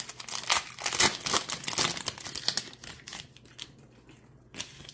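Foil trading-card booster pack crinkling as it is opened and handled. The crackling is dense for about the first two and a half seconds, then dies down, with one more brief rustle near the end.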